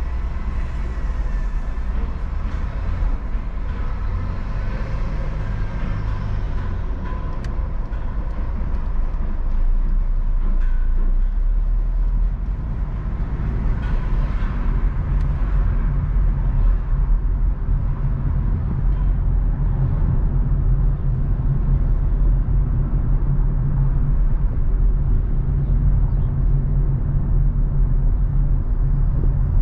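Car driving through city traffic: a steady low rumble of engine and road noise with sounds of passing vehicles, a little louder in the second half.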